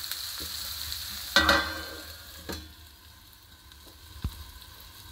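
Prawn and ridge gourd curry sizzling in a frying pan, left to cook in its own juices on a low flame. About a second and a half in, a steel lid clatters onto the pan, with a smaller knock a second later, and the sizzling then goes quieter and muffled under the lid.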